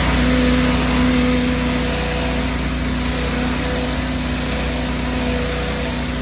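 Pressure washer running: a steady motor drone with a constant hum, under a continuous hiss of high-pressure water spray.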